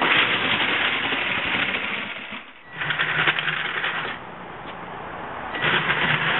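Tracked robot's gear motors and rubber treads whirring and rattling as it drives. It runs hard for about two and a half seconds, then in two shorter spells, about three seconds in and near the end.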